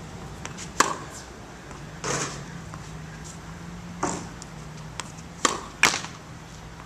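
Tennis ball being struck by a racket and bouncing on a hard court during a groundstroke drill: a sharp hit about a second in, softer scuffing swishes around two and four seconds in, and two sharp hits close together near the end, over a low steady hum.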